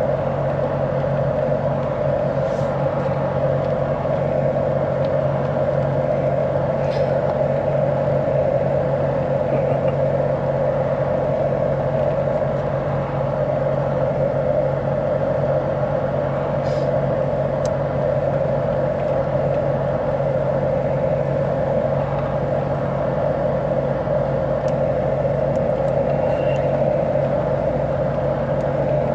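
A vehicle's engine running steadily, a constant even hum with no change in pitch.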